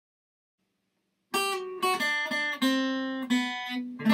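Outro music on acoustic guitar: a short run of plucked and strummed notes that starts about a second in, each note sharply struck and left ringing.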